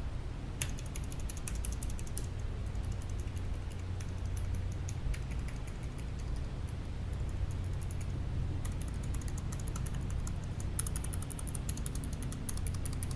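Keys of a Keychron K7 low-profile mechanical keyboard being pressed one at a time in a steady run of light clicks, with a pause of about a second and a half past the middle and a quicker flurry near the end. A steady low hum sits underneath.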